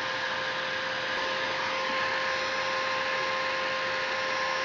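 Electric heat gun running steadily, its fan blowing hot air onto PVC pipe to soften it for flattening; an even hiss with a steady hum, and a second, higher tone joins about two seconds in.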